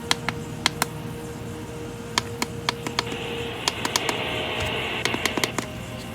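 Sharp SPC585 alarm clock playing one of its built-in sleep sounds through its small speaker: irregular sharp clicks over a steady hum. A hiss swells about halfway through and fades near the end.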